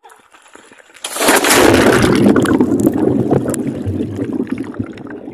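A camera plunging into shallow seawater about a second in: a sudden splash, then muffled underwater rushing and bubbling that slowly fades.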